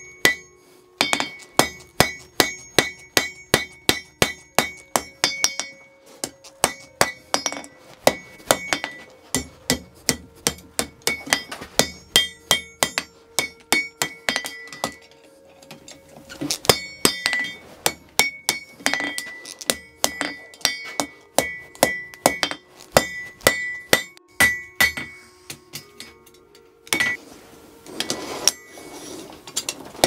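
Blacksmith's hand hammer striking red-hot iron on an anvil, about two blows a second, each with a bright anvil ring, in runs broken by short pauses: hot forging, thinning and bending over the end of an iron door latch bar.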